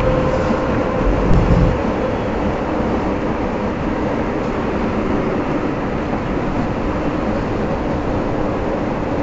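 Running noise inside a moving passenger train carriage: a steady rumble and hiss of wheels on the rails. The low rumble is heavier for the first two seconds or so, then settles to an even level.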